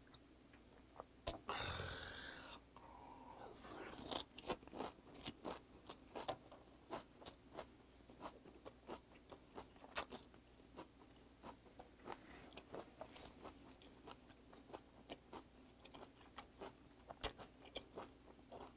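Soft, wet, close-up chewing of a large mouthful of raw flounder sashimi wrapped in kimchi: irregular mouth clicks and smacks, about one or two a second. About two seconds in there is a short breathy rush.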